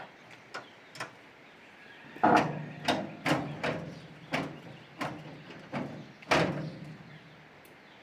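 A series of sharp knocks or blows, about eight loud strokes roughly half a second to a second apart, each ringing briefly. They are preceded by a couple of faint taps.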